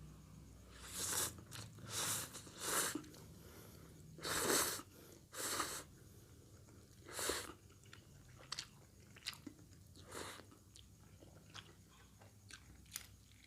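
Close-miked eating of a plate of fried instant noodles topped with fried shallots. About seven loud, noisy mouth sounds come in the first seven seconds, then a run of quieter, short chewing clicks.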